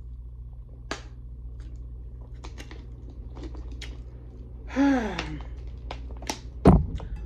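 Plastic water bottle crinkling and clicking as it is handled and its cap is worked, over a steady low hum. About five seconds in there is a short vocal sound from the drinker, falling in pitch, and a sharp knock comes near the end.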